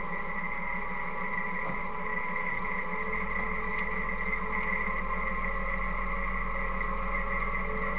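Farm tractor running steadily as it travels with a loaded bale feeder, a steady high whine riding over the engine and the low rumble growing a little about three seconds in.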